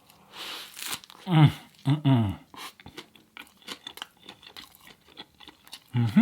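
Close-up eating sounds: a crunchy bite, then chewing with many small wet mouth clicks. Two short falling 'mm' hums come early on, and another near the end.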